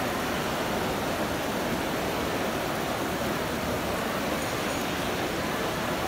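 Indoor fountain's water jets and cascading channel splashing in a steady, even rush.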